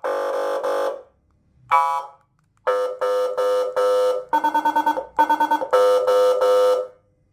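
400 W dual-tone electronic siren sounding through its speaker in short, steady-pitched blasts, switching between two different tones, with a fast stutter of about eight pulses a second near the middle.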